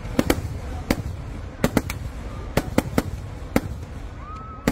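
Festival fireworks display: aerial shells (dynas) going off in a rapid, irregular volley of sharp bangs, several in quick clusters, over a continuous low rumble. A short rising whistle comes near the end.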